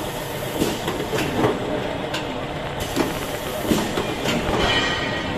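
Automatic cake batter depositing machine running: a steady mechanical rattle from its tray conveyor and filling head, with sharp clacks every half second to a second as it cycles, and a thin high whine near the end.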